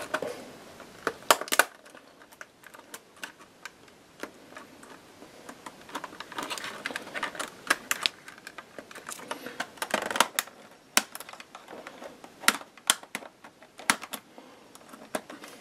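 Irregular sharp plastic clicks and snaps from a Lenovo ThinkPad's plastic keyboard cover being pried and popped loose, some clicks in quick clusters.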